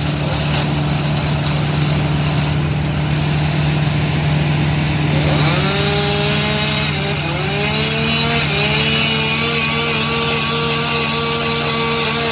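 Chainsaw engine revved up in repeated rising pulses from about five seconds in, then held at high speed, cutting a limb of a fallen tree. A steady engine hum runs underneath.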